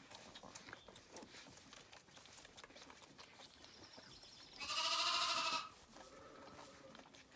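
Zwartbles lamb bleating: one loud, wavering call lasting about a second, a little past halfway, with a fainter bleat just before it and another just after. Soft rustles and clicks run underneath.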